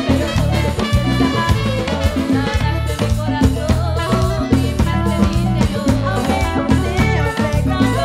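Live band playing an upbeat, steady dance rhythm with drum kit, bass and saxophones, while women's voices sing a worship song.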